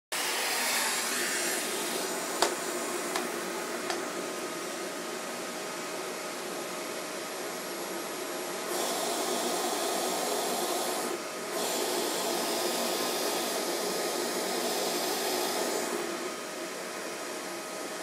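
Vacuum cleaner running steadily, its floor head pushed over carpet. There is a sharp knock about two and a half seconds in, with a few lighter ones after it. The air hiss grows louder and brighter about nine seconds in, dips briefly near eleven, and eases again near sixteen.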